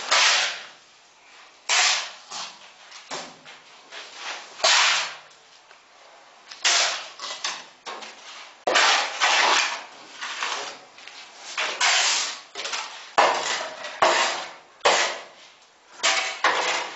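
Repeated harsh scrapes, each starting suddenly and dying away within a second, about one a second with a few pauses: a long board worked by hand over cement mortar on the wall.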